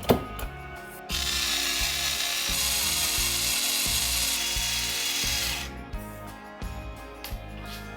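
A small electric motor runs loud for about four and a half seconds, starting about a second in and changing pitch twice before it stops, over background music.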